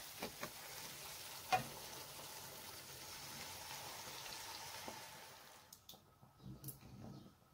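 Butter-and-flour halva mixture sizzling steadily in a frying pan, with a wooden spatula knocking against the pan a few times, sharpest about a second and a half in. Hot syrup is poured in and the sizzling dies away about five and a half seconds in, leaving soft stirring clicks in the liquid.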